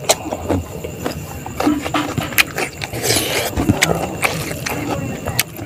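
A person eating rice and chicken by hand: chewing and lip-smacking with many short wet mouth clicks, and a brief hiss about three seconds in.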